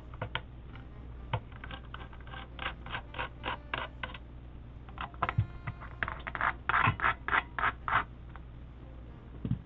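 Hex screwdriver backing screws out of a keyboard case: a series of short scratchy clicks and scrapes, coming in quick runs.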